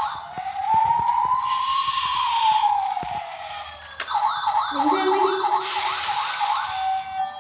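Electronic toy siren sound effect: one slow wail that rises and falls, then after a click about four seconds in, a fast warbling siren.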